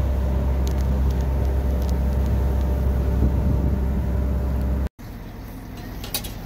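Steady low drone of a sportfishing boat's engine with a noisy haze over it. About two-thirds through, it breaks off abruptly and gives way to quieter deck sound with a couple of short knocks.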